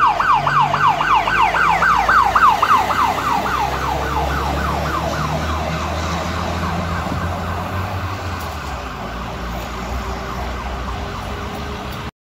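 Fire engine siren sounding a fast yelp, rapid up-and-down sweeps about three times a second, loud at first and then fading as the turntable-ladder truck moves away. The low rumble of the truck's engine is strongest a few seconds in as it passes. The sound stops suddenly near the end.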